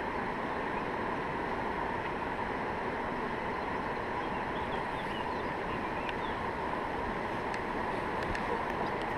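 Steady rushing of fast river water through falls and rapids, an even, unbroken roar.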